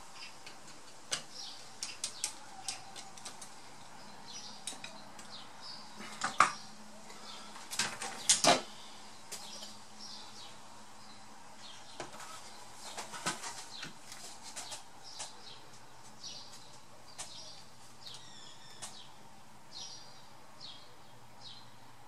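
Small clicks and taps of a screwdriver and laptop parts being handled on a workbench, with louder knocks and clatter of plastic laptop parts being moved about six and eight seconds in.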